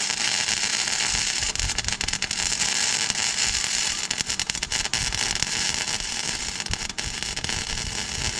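Electric arc welding: the welding arc crackles and hisses steadily as a retaining piece is welded onto a hardened steel tractor hitch bar.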